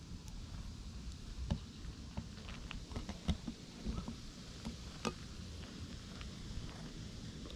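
Soft rustling and a scattering of small clicks and crackles from a hand scratching through a long-haired brown tabby cat's belly fur, over a low rumble.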